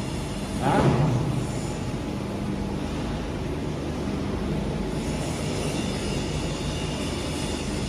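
Plate rolling machine running with a steady mechanical hum, with one heavy thump about a second in; from about five seconds a thin high squeal-like tone joins the hum.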